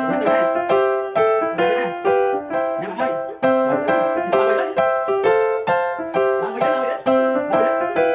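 Background piano music, a steady run of notes at about two a second.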